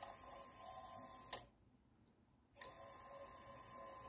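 Small N20 gearmotor of a 3D-printed cam point motor whirring quietly as it throws the model railway point, twice. The first run of about a second and a half stops with a sharp click. The second starts about a second later and stops with another click at the end. Each run turns the cam half a turn until its microswitch cuts the motor.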